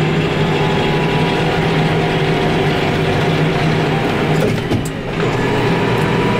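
Case IH Farmall 115U tractor's diesel engine pulling steadily while driving, heard from inside the cab. The level briefly dips about five seconds in.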